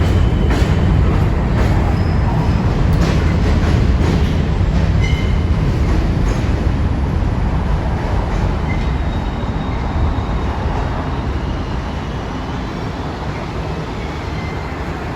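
R46 subway train pulling away and running past, its wheels clacking over rail joints with a few brief squeals over a heavy rumble. The sound slowly fades as the train departs.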